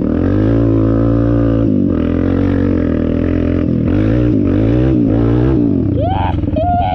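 Dirt bike engine revving hard under throttle, its pitch climbing and dropping several times as the rider gets on and off the gas.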